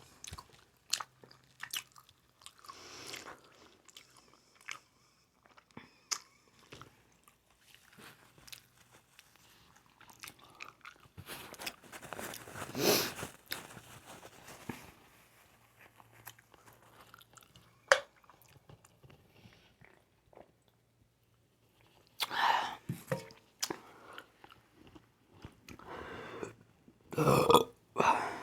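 A person chewing and biting seafood-boil food, with many short wet clicks and crunches. A few louder bursts come about midway and near the end; they sound like short burps or burp attempts.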